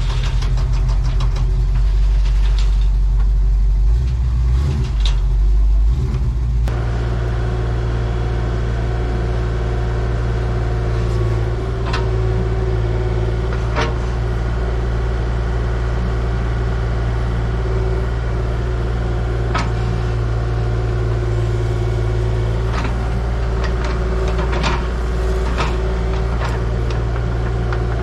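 Engine of a piece of farm or earthmoving equipment running steadily. About seven seconds in it changes abruptly from a heavy, low pulsing rumble to a steadier hum, with a few sharp metallic clicks later on.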